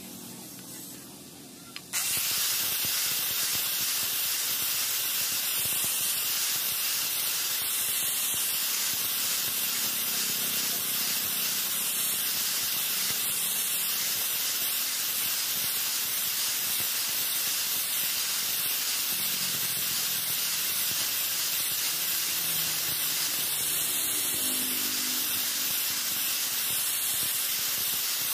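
Electric angle grinder with an abrasive disc grinding a steel knife blade: a loud, steady hiss that starts suddenly about two seconds in.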